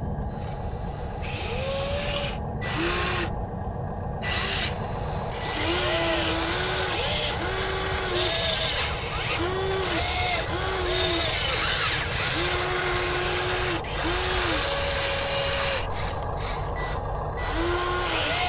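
Scale RC model of a Volvo EC160E hydraulic excavator: its electric hydraulic pump whines up and back down in about a dozen short spurts as the boom and bucket are worked, over a steady low rumble.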